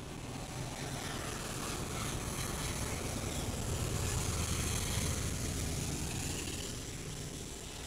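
A vehicle passing by: a rumble that swells to its loudest about five seconds in, then fades away.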